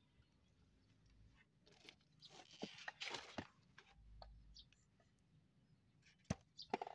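Mostly quiet, with a brief scrape and a few light metallic clicks and taps of engine parts being handled during piston fitting: a scrape with clicks a couple of seconds in, and a few more sharp clicks near the end.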